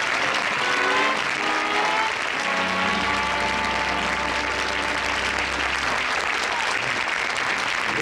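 Studio audience applauding over music: a short run of notes, then a long held chord from about a third of the way in until near the end.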